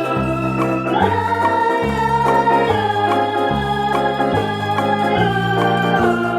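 Background music on an electronic organ: held chords over a bass line that steps to a new note about every second.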